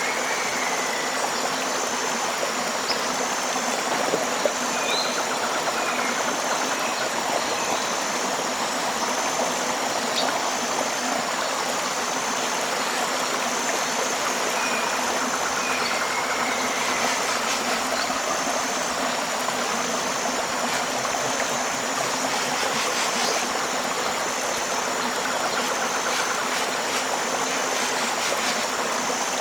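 Steady rushing of a tropical river. A high-pitched call pulses about once a second, and occasional short bird chirps break in.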